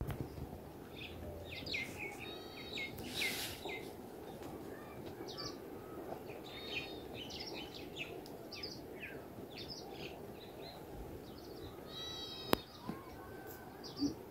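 Small birds chirping and calling in many short notes over a steady background hiss, with one sharp click late on.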